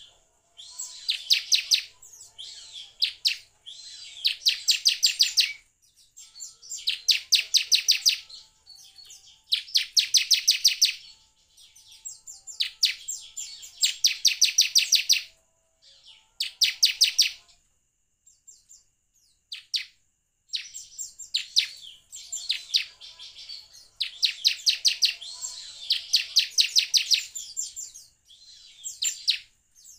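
Bar-winged prinia (ciblek) singing: fast, rattling trills of high chirps about a second long, repeated every two to three seconds, with a sparser run of single notes a little past halfway.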